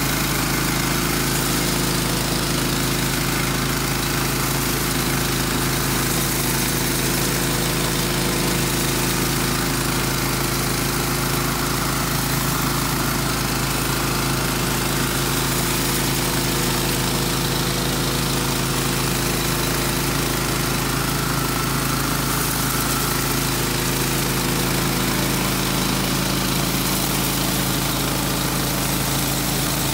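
Honda GX390 gas engine of a 4200 PSI pressure washer running steadily, with the steady hiss of high-pressure water spraying from a 20-inch surface cleaner working on concrete.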